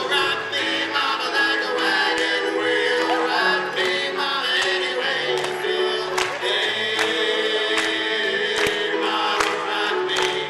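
A live acoustic band playing: grand piano, acoustic guitar and upright bass, with a lead line from the front man at the microphone. Past the middle the lead holds one long steady note for a couple of seconds.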